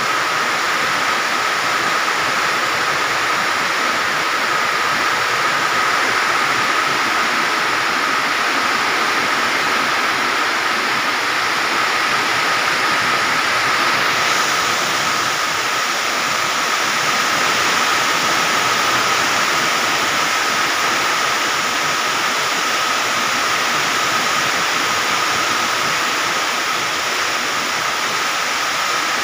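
Heavy rain with strong wind: a loud, steady rushing noise that holds even throughout.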